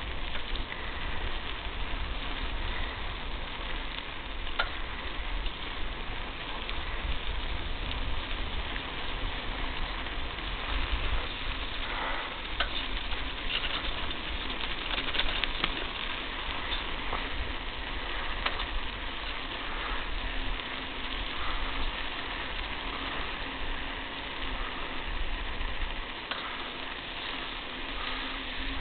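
Vehicle tyres rolling over a loose dirt and gravel roadbed: a steady crackling hiss over a low rumble, with scattered clicks of stones near the middle.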